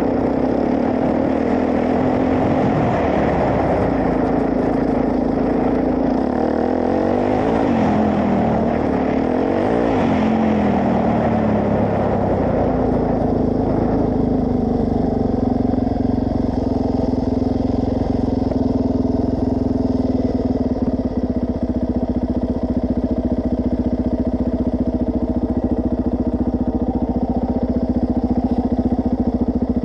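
Suzuki DR-Z400S single-cylinder four-stroke engine heard from a bike-mounted camera. For the first dozen seconds it is under way, its pitch rising and falling under a rushing noise of riding. About halfway through it settles to a steady, even note, the bike apparently stopped and idling.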